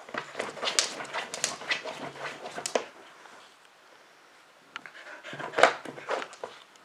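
Husky pawing and burrowing its nose into a cotton sheet: scratchy rustling of fabric in two flurries, the first over about three seconds and the second starting near the five-second mark.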